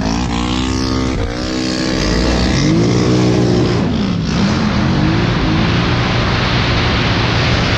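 ATV engine revving as the quad accelerates. Its pitch climbs in the first second, dips, then swings up and down with the throttle, while a loud rush of wind on the helmet microphone builds as speed picks up.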